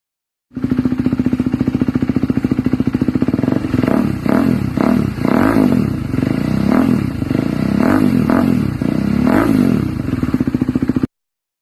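KTM Duke 200's single-cylinder engine breathing through an SC Project S1 slip-on exhaust. It idles with a steady pulsing beat for a few seconds, then is revved in several quick throttle blips, each rising and falling back to idle.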